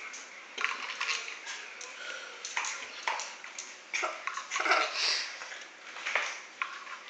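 A large dog snapping its jaws at soap bubbles: irregular clicks and wet mouth smacks, several a second.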